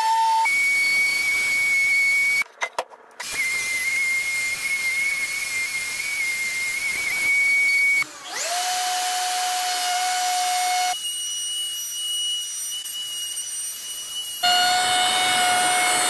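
Electric random orbital sander on a wooden tabletop, then a router with a roundover bit cutting along the board's edge: steady high motor whines over a hiss, the pitch jumping abruptly several times between short clips. Just after eight seconds a motor spins up to a steady whine.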